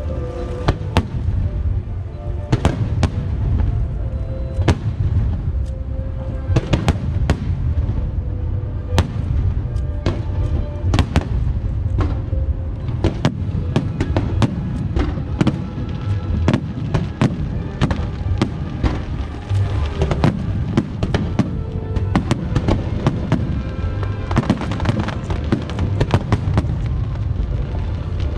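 Fireworks show: a dense, continuous run of firework bursts and bangs, with music playing underneath.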